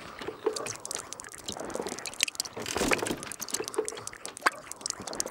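Cartoon sound effects of apples being crunched and squelched, with drips of juice: irregular small crunches, clicks and wet drips.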